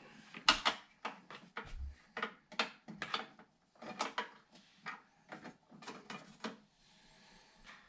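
Hands handling PC parts and case hardware during a build: a run of irregular small clicks and knocks, with a short low thud just before two seconds in.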